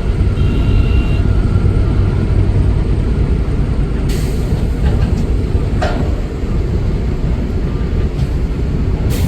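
Heavy diesel engine of a Caterpillar 330 excavator running hard and steady while digging, with a few sharp metal clanks about four, six and nine seconds in.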